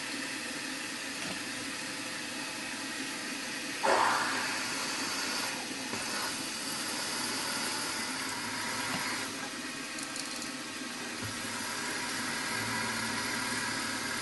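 Milling machine spindle running steadily as a 5.2 mm drill bores a hole in an aluminium plate, with a brief louder burst about four seconds in.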